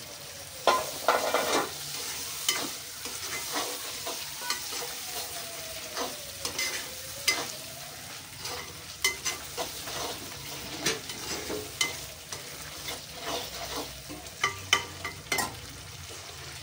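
Metal ladle stirring a thick tamarind and brinjal gravy in a pan on the stove, clinking and scraping against the pan over a steady sizzle as the gravy cooks down.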